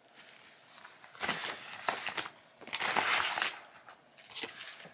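Paper rustling and crinkling as printed cards and brown crinkle-paper packing filler are handled, in several short bursts with the longest and loudest about three seconds in.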